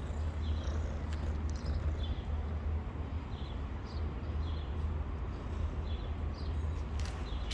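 Steady low rumble with a small bird's short, high chirps repeating every half second or so.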